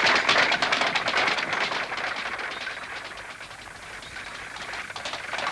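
A horse-drawn carriage on cobblestones: hooves clip-clopping and wooden wheels rattling in a dense clatter. It fades as the carriage moves away, then grows louder again near the end.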